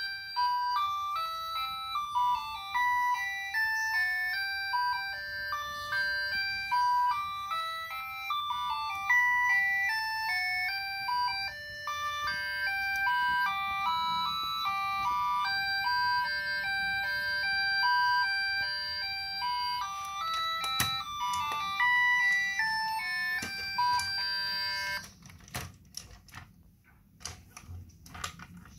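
Electronic robot baby toy playing a simple beeping tune from its speaker, one line of stepped notes, which stops about 25 seconds in. A few sharp plastic clicks follow near the end.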